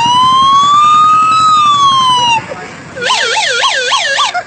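An ambulance siren imitated on a musical instrument. It plays one long wail that rises and falls, then about three seconds in it changes to a fast yelp warbling about four times a second.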